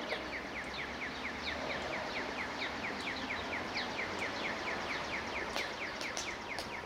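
Outdoor ambience with a fast, steady series of short falling chirps, about five a second, over a background hiss, with a few sharp clicks near the end.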